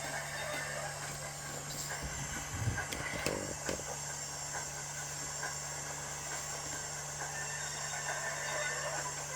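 DCC sound decoder in a model K class steam locomotive playing steam hiss and train sounds through its small speaker over a steady hum. A few sharp clicks come about three seconds in.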